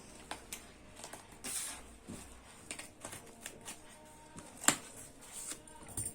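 Scattered light clicks and knocks in a small room, with one sharp, much louder click about three-quarters of the way through.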